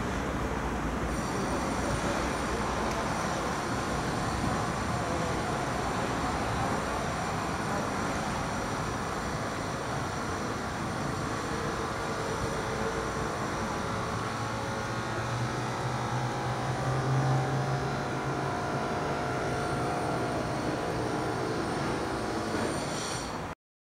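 Outdoor city ambience: a steady wash of distant traffic noise, with a low engine drone swelling and fading about two-thirds of the way through. The sound cuts off suddenly near the end.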